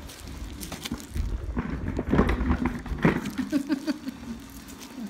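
Chair rolling across the floor with a low rumble and rattling, loudest in noisy bursts around the middle. A few short voice sounds follow near the end.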